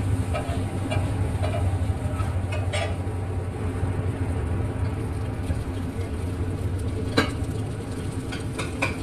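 Metal spatulas scraping and tapping on a large flat griddle as noodles are tossed and fried, with a few sharp clinks, the clearest about seven seconds in. A steady low hum runs underneath.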